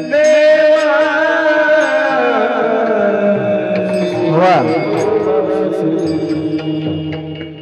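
Devotional Marathi abhang singing: one long melismatic held note that slowly falls in pitch and ends in a quick wavering ornament about four and a half seconds in, over instrumental accompaniment with light percussion strokes.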